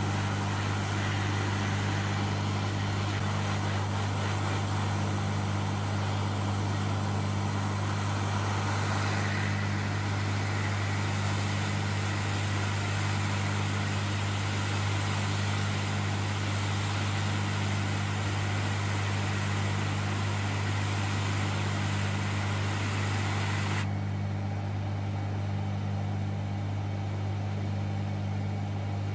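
Hot air rework station blowing hot air onto a circuit board to reflow a MOSFET's solder: a steady hiss of air over a low, steady hum. The hiss cuts off sharply near the end, leaving the hum.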